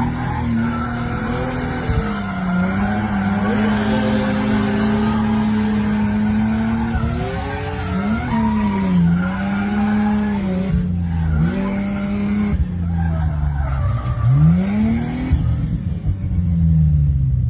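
A drift car's engine revving up and down through a slide, its note rising and falling over and over, with the tires squealing and skidding.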